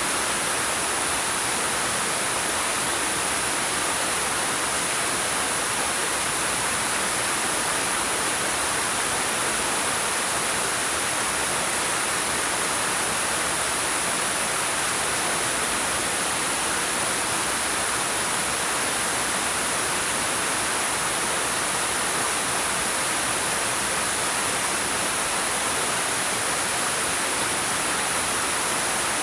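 Waterfall pouring over rocks: a steady, unbroken rush of water.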